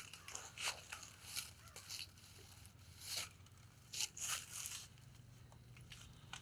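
Several short rustling, crinkling noises over a faint steady low hum.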